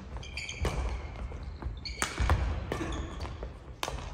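Badminton rally in a gym: a few sharp racket hits on the shuttlecock about a second apart, with the thud of players' feet and brief squeaks of shoes on the wooden court floor.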